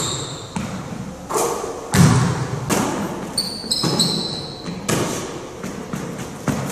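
Basketball bouncing on a hard court, irregular thuds about one to two a second, with a short high squeak about three and a half seconds in.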